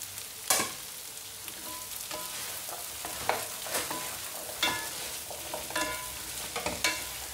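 Long beans, bell pepper and carrots sizzling in oil in a stone-coated frying pan as two wooden spatulas toss them, with irregular knocks and scrapes of the wooden spatulas against the pan, the loudest about half a second in.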